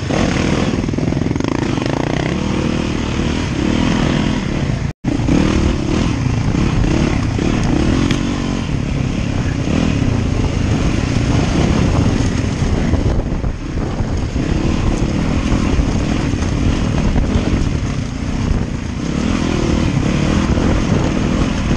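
Off-road dirt bike engine heard from the rider's helmet, revving up and down under load while riding a muddy trail. The sound cuts out completely for an instant about five seconds in.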